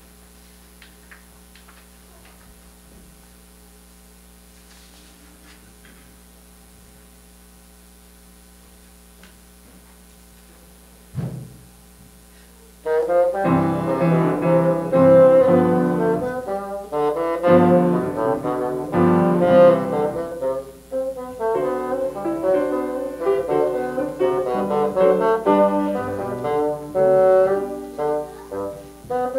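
Quiet room tone for about twelve seconds with one short low sound, then a bassoon and a grand piano start playing together suddenly, a fast-moving passage of many quick notes.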